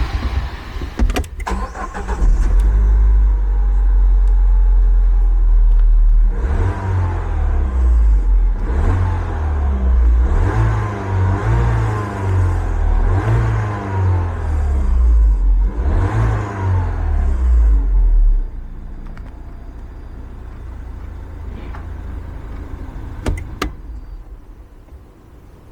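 Peugeot RCZ's 1.6-litre four-cylinder petrol engine idling loudly. It is revved in a series of blips, each rising and falling, for about twelve seconds, then drops back to a quieter idle.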